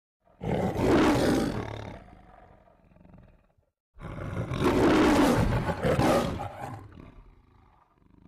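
A lion's roar in the manner of the MGM logo roar, heard twice: a shorter roar about half a second in, then a longer one from about four seconds in.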